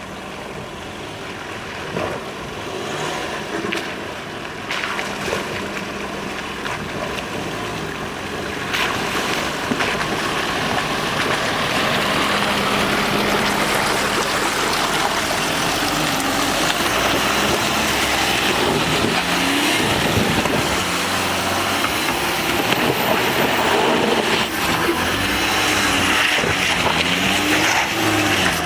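Volkswagen Touareg TDI diesel SUV engine running as it is driven off-road, under a rushing noise that grows louder about nine seconds in. In the second half the engine's pitch rises and falls repeatedly as the throttle is worked.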